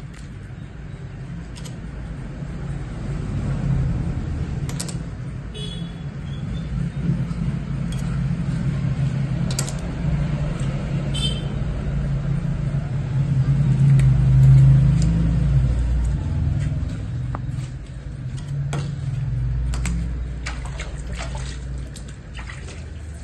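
Low, steady motor rumble like an engine running nearby, swelling to its loudest a little past the middle and then easing off. Scattered small clicks and taps sound over it.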